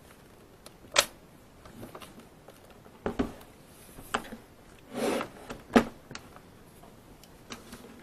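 Lenovo ThinkPad T520 laptop being handled and moved on a desk: several short, sharp plastic clicks and knocks, the loudest about a second in and just before six seconds in.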